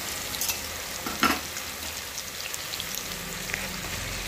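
Sliced onions sizzling in hot oil in a metal pressure cooker as they are stirred with a wooden spoon, the onions still pale. A sharp knock a little over a second in, with a lighter click before it, as the spoon strikes the pot.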